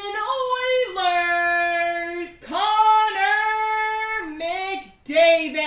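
A person singing a wordless tune in a high voice, holding long notes and ending on a falling glide: a celebratory outburst on pulling a rare card.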